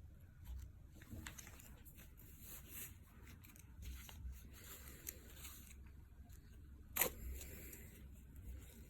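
Faint rustling and scratching from handling a nylon watch band on the wrist, with small clicks throughout and one sharper click about seven seconds in.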